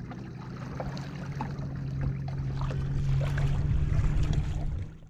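Watersnake Venom SX 34 lb electric trolling motor running at cruising speed with a steady low hum, under wind rumble on the microphone and water splashing against the kayak hull. Fades out near the end.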